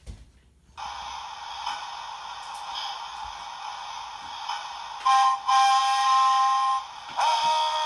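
A model train's electronic sound unit playing a steady hiss, then whistle blasts through its small speaker: a short one about five seconds in, a long one right after, and another starting near the end.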